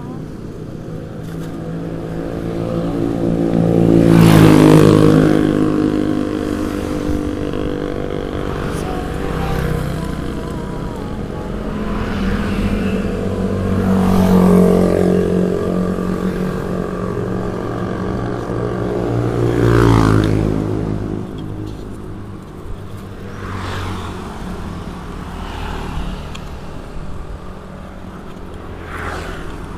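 Motor vehicle engines running in road traffic, with three loud swells where the engine pitch rises and falls, about four, fourteen and twenty seconds in.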